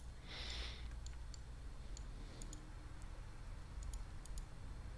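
Faint, scattered single clicks of a computer mouse button over a low steady hum, with a soft hiss shortly after the start.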